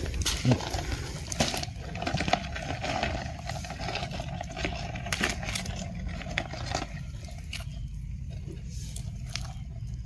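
Dry fallen leaves and twigs crackling and rustling in irregular clicks as they are stepped on and disturbed. A steady hum sounds underneath and stops about seven seconds in.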